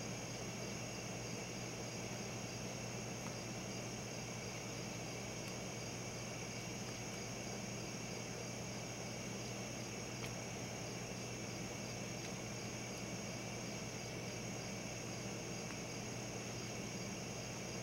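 A steady chorus of night crickets chirping continuously at several high pitches, over a constant low hum.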